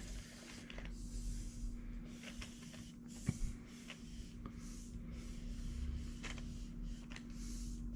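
Work Zone tape measure's metal blade being slowly drawn out of its case, a faint sliding hiss with scattered light clicks, the sharpest about three seconds in. A steady low hum runs underneath.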